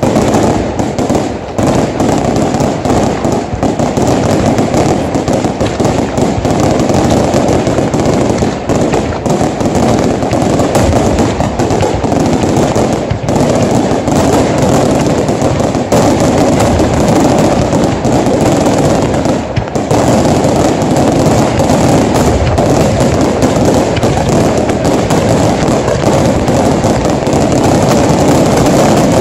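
Aerial firework shells launching and bursting in rapid, continuous succession: a dense, unbroken barrage of bangs and crackle with no pause between reports.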